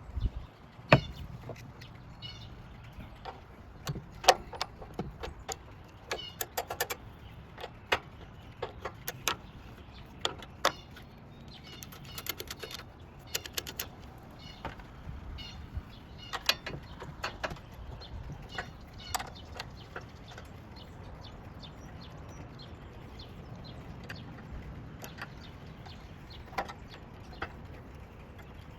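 Irregular sharp clicks and knocks, many in the first twenty seconds and fewer after, with faint bird chirps in the background.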